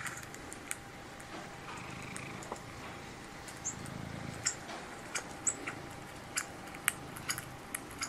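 Domestic cat purring close by, with scattered sharp clicks and a few brief high chirps over it.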